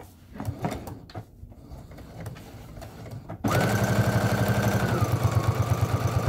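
Faint fabric-handling sounds, then about three and a half seconds in an electric household sewing machine starts abruptly and runs steadily, stitching a seam through layered fabric with a fast, even needle pulse. Its motor whine drops a little in pitch about a second and a half after starting.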